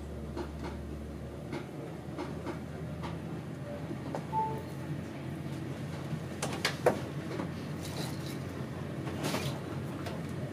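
Inside an HST passenger coach moving off slowly: a steady low running hum with scattered clicks and knocks from the wheels and coach fittings, the loudest about seven seconds in.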